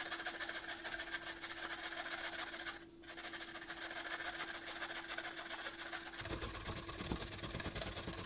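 Carrots rubbed up and down a metal hand grater into a stainless steel bowl: a fast, even rasping rhythm, broken by a brief pause about three seconds in.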